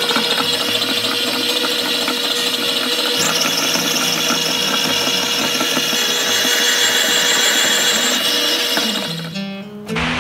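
KitchenAid Classic Plus stand mixer running, its motor whirring steadily as the dough hook kneads bread dough in the steel bowl; a higher hiss joins about three seconds in. The whir cuts off about nine seconds in.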